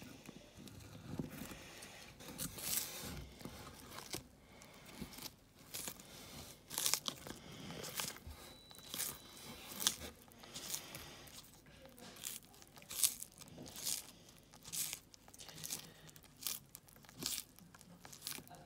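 Tortoise biting and tearing a crisp lettuce leaf, a sharp crunch with each bite. The bites come sparsely at first, then about one or two a second from about six seconds in.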